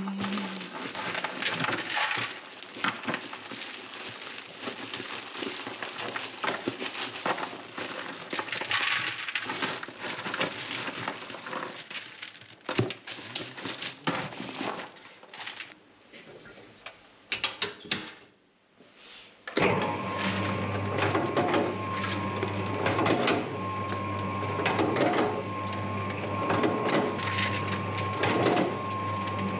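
Clattering and scraping of bakery handling at first. About two thirds in, an electric dough mixer starts suddenly and runs steadily with a motor hum and a thin whine, swelling in a slow rhythm about once every second or two as the dough is worked.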